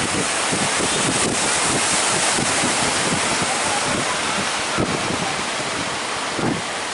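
Sea waves and surf washing, with wind buffeting the microphone.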